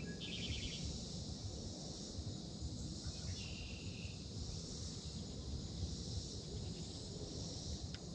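Insects buzzing in a steady high chorus, with two short pulsed trills, one near the start and one about three and a half seconds in.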